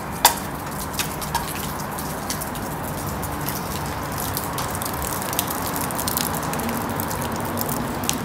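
Steady rain with irregular drips and taps of water falling from the wet rock overhang, one sharper tap just after the start.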